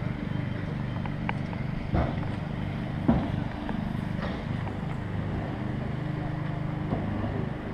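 AgustaWestland AW139 air-ambulance helicopter running on the ground, its twin turbines and rotors making a steady, pulsing drone. A couple of short thumps come through about two and three seconds in.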